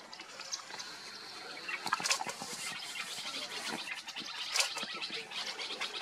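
A flock of Indian silverbills making rapid short chips and clicks, growing dense from about two seconds in.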